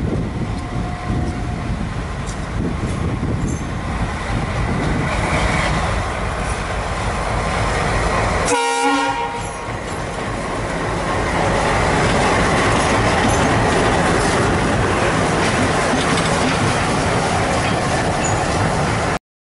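Indian Railways WDM-3A diesel locomotive passing close by, its engine running with the clatter of its wheels over the rail joints. It grows louder in the second half as it comes alongside, after a brief break near the middle, and cuts off suddenly just before the end.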